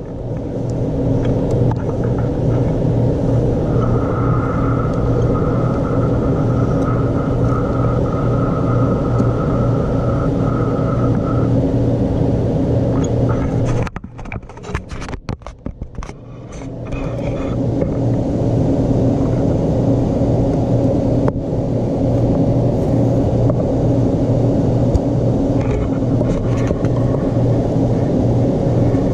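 A machine running with a steady, low hum. It drops away for about two seconds around the middle, then builds back up. A thin high whine sounds over it for several seconds in the first half.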